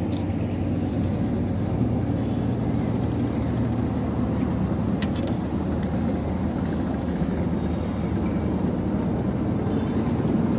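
An engine running steadily nearby, a low, even drone.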